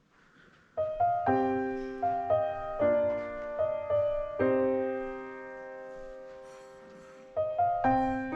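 Acoustic piano played slowly: a short run of single notes and chords starting about a second in, one chord left to ring and fade for about three seconds, then more notes near the end.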